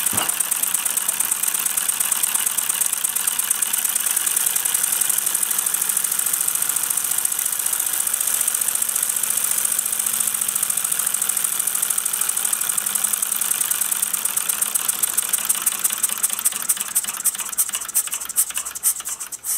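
Gas-fired Mamod SP7 twin-cylinder model steam engine running fast: a rapid, even beat of exhaust chuffs and mechanical clatter over a steady hiss. Over the last few seconds the beat slows and the individual strokes become distinct.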